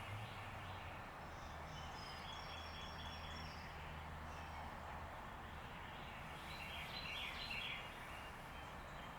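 Outdoor ambience: a steady hiss with faint bird calls, and a short run of chirps about seven seconds in.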